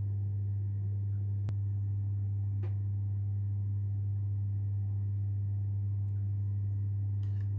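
A steady low electrical hum with faint higher overtones, unchanging throughout. A sharp click about a second and a half in and a softer one a second later.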